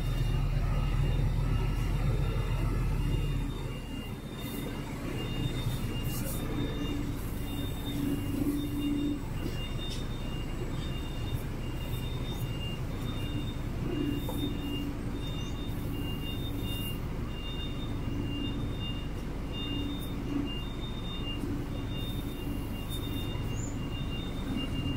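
Truck reversing: a reverse alarm beeps steadily about twice a second over the diesel engine running, the engine loudest for the first few seconds.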